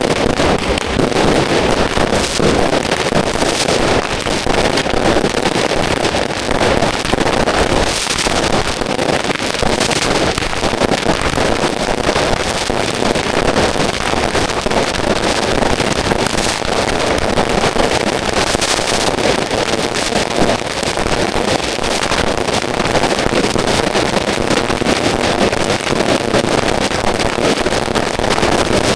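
Firecrackers going off in a dense, continuous crackle, loud and unbroken throughout.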